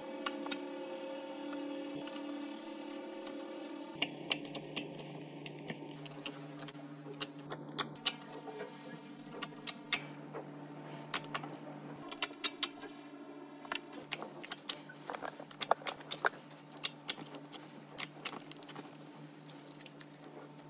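Hands squishing and poking slime: quick runs of sharp, wet clicking pops as air pockets in the slime burst, with a faint steady hum underneath.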